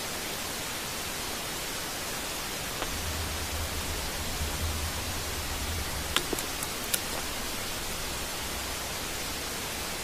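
Recording made with a microphone down a borehole about 25 m underground: a steady hiss with a low hum that swells from about three to six seconds in, and a few faint clicks around six to seven seconds. The uploaders present it as the sound of North Korean tunnel digging.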